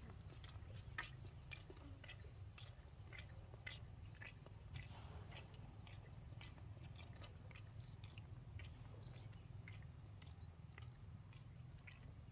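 Faint outdoor ambience: a steady high insect drone with scattered light clicks and a few short high chirps.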